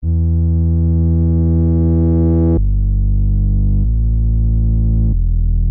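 Synthesizer holding low, steady notes or chords. The pitch changes abruptly three times, giving four held tones in a row.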